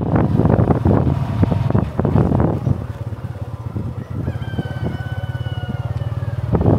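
Small motorcycle engine running under way, louder at first and easing off after about three seconds. A rooster crows once, a long call of about two seconds, a little past halfway.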